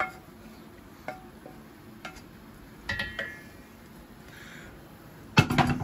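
Wooden spoon knocking and scraping against a frying pan and a cooking pot as fried chestnuts and onion are emptied out: a few light knocks, a ringing clink about three seconds in, then a louder clatter of cookware near the end.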